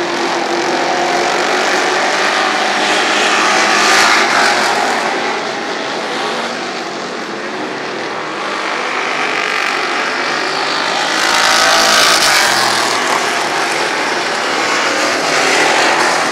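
A field of dirt-track street stock race cars running at racing speed, their engines at full throttle, swelling loudest as the pack passes about four seconds in and again about twelve seconds in.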